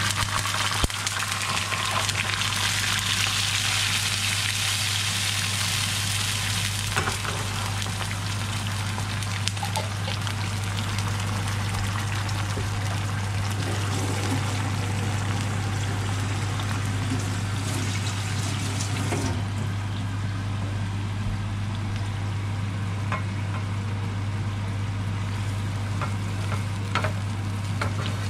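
Vegetable pasta sauce sizzling in a frying pan on fried chopped garlic. The sizzle is loudest for the first several seconds after the sauce goes in, then settles to a softer simmer. A steady low hum runs underneath, and a few light taps of a wooden spoon come near the end.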